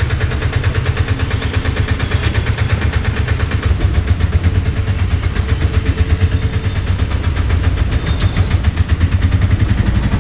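Auto-rickshaw's small single-cylinder engine idling, a fast, even putter heard from inside the cab.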